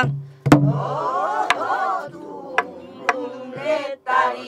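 Several voices singing a southern Korean (Namdo) folk-song phrase together, punctuated by four sharp strokes on a buk barrel drum keeping the beat; near the end a single voice takes up a long held note.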